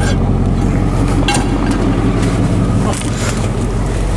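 A truck running, heard from inside the cab as a steady low rumble with a few small knocks and rattles.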